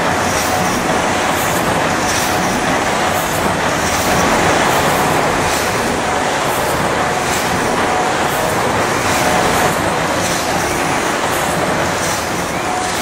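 The 1907 J. & E. Wood four-cylinder triple-expansion mill steam engine running, turning its rope-drive flywheel. It makes a steady mechanical din with a faint regular beat about once a second.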